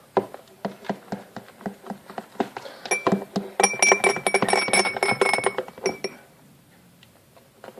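A spoon stirring wet slime in a bowl, clicking and clinking quickly against the sides, with a thin ringing from the bowl in the middle part; the stirring stops about six seconds in.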